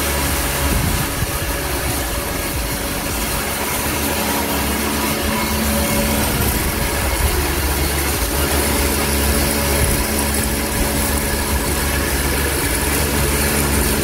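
Feed grinding machine running steadily, grinding corn for cattle feed.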